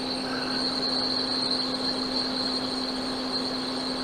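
Steady mechanical hum and hiss with a constant high-pitched whine over a low hum, unchanging throughout.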